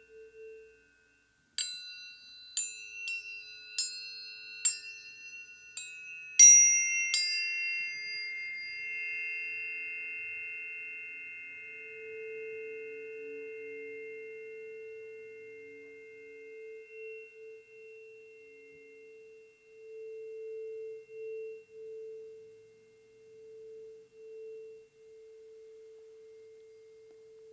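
Planetary tuning forks struck about seven times in quick succession, each strike giving a bright clang that settles into a pure ringing tone. The tones overlap and sustain, fading slowly, while a lower tone keeps ringing and pulses in loudness to the end.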